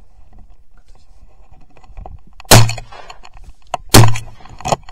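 Two shotgun shots about a second and a half apart, each a sharp bang with a short low boom, then a quieter bang near the end.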